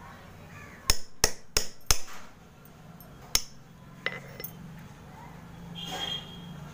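A steel knife blade scraping and chipping a stick of dry Multani mitti (fuller's earth clay), with a quick run of four sharp clinks about a second in, another near the middle, and a softer scrape near the end.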